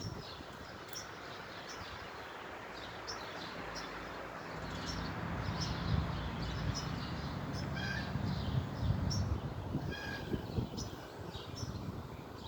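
Birds chirping in short repeated notes over outdoor background noise, with a low steady buzz of bumblebees flying close by that swells through the middle few seconds.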